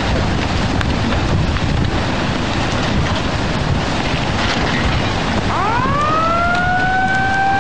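Tsunami water surging and rushing over a sea wall and through rows of parked cars, a loud steady roar. About five and a half seconds in, a siren-like wail rises in pitch and then holds steady.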